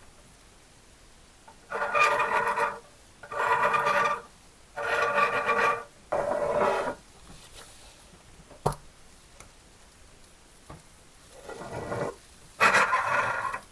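Six slow abrasive strokes worked by hand on the copper box, each about a second long with a ringing tone, and one sharp click about halfway through.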